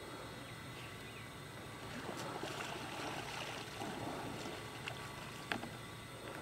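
Soft water splashing and dripping from kayak paddling. It swells for a couple of seconds in the middle, and two light clicks come near the end, the second sharper.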